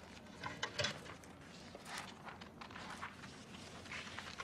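Light handling of sheets of paper: soft rustles and scattered small clicks, a few close together about half a second to a second in.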